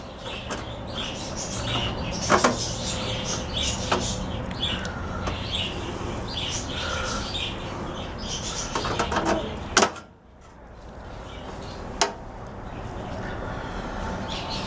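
Pliers snipping through the sheet-metal tabs of a microwave oven's motor access panel: a few sharp clicks, with squeaky metal creaks over a steady hum.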